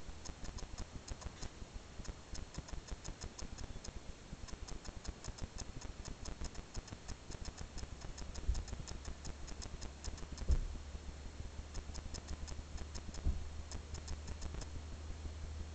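Rapid, uneven light clicking, several clicks a second in clusters, over a low steady hum that strengthens about halfway through, with three soft thumps.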